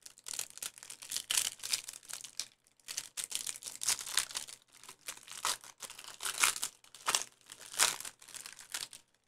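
Foil wrapper of a Panini Prizm football trading-card hanger pack crinkling and tearing as it is opened by hand, in uneven rustles with the loudest crackles near the end.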